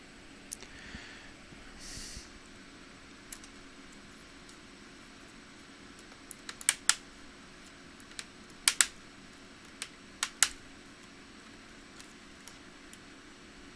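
Plastic laptop bezel being pried apart with a small pry tool, its clips snapping loose as sharp clicks: a few light ones at first, then louder clusters of snaps about halfway through and again a few seconds later.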